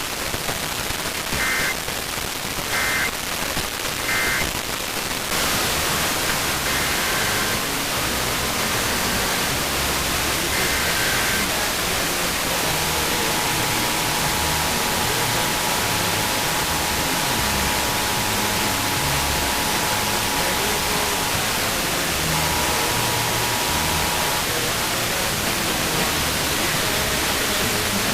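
Radio static hiss, which gets louder about five seconds in. Near the start come three short Emergency Alert System data bursts, the end-of-message tones after a test. In the middle a faint two-tone EAS attention signal holds for about nine seconds, breaks off, and returns for about two seconds.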